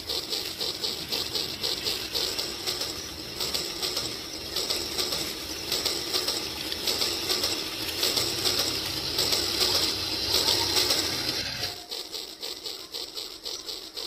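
Rail King battery-powered toy steam locomotive running along its plastic track, its small electric motor and wheels making a fast, even clatter that grows louder as the train comes close. The lower part of the sound drops away abruptly near the end.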